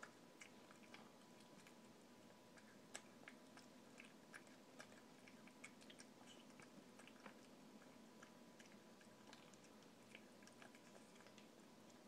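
A cat eating fast, chewing its food with a steady run of small, irregular wet clicks and crackles, faint throughout.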